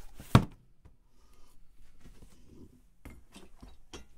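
Hands handling cardboard packaging inside a shipping box: one sharp knock about a third of a second in, then faint scraping and rustling, with a quick run of small taps about three seconds in.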